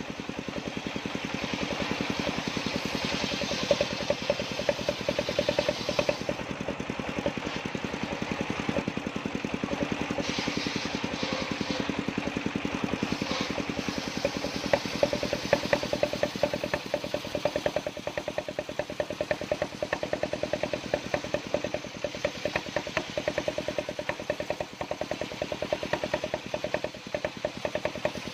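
Table circular saw ripping a block of jackfruit heartwood lengthwise into planks, over the steady, rapidly pulsing run of the engine that drives it.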